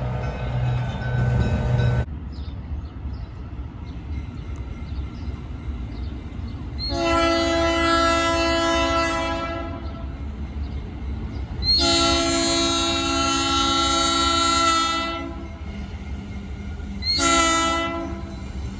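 Locomotive air horn sounding a chord in two long blasts and a short one, over the steady rumble of a passing train. A different sound cuts off abruptly about two seconds in.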